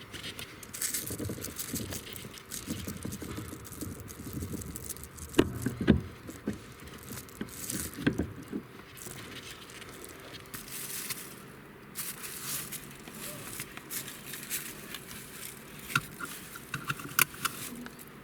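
Hand tools and metal fasteners clinking and rattling during car suspension and steering dismantling, with scattered light knocks; two sharper knocks come about five to six seconds in and a quick run of small ticks near the end.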